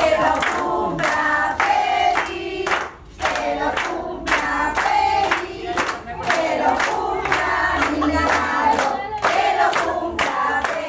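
A group of adults and children singing a birthday song together, clapping their hands in a steady beat in time with it.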